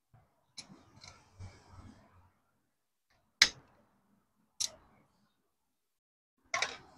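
A small hand tool clicking sharply against metal in the oil filter cover's M6 bolt hole on a motorcycle engine casing, during a thread-repair-insert job: about five short clicks, the loudest about three and a half seconds in, with faint scuffing of handling early on.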